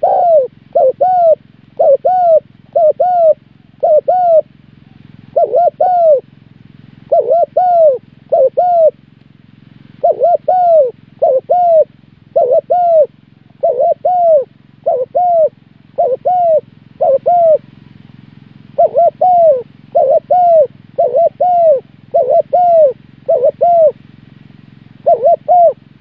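Spotted dove cooing: short rising-and-falling coo notes in quick pairs and threes, repeated about once a second, with a few brief pauses.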